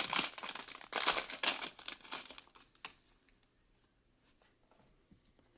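Foil trading-card pack wrapper being torn open and crinkled, a rapid crackle for about the first half.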